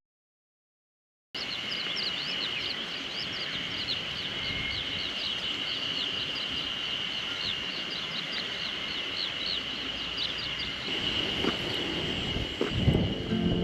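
Outdoor ambience: a steady high-pitched buzz with many short chirps repeating several times a second, bird- or insect-like. A few low thuds come near the end. The first second or so is silent before the sound cuts in.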